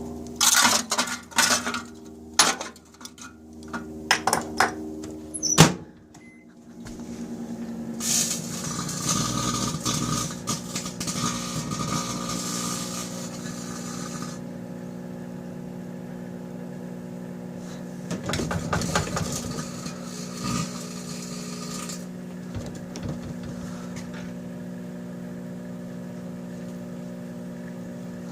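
Microwave oven running with a steady hum while the cut-up aluminium can pieces inside spark and crackle. Sharp clicks and pops come over the first several seconds, the hum drops out briefly about six seconds in, and then it runs on with two long stretches of crackling.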